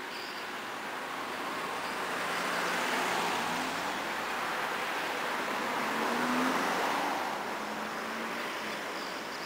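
Road traffic passing, a rushing noise that swells twice with a faint engine hum, and a few faint high chirps at the start and near the end.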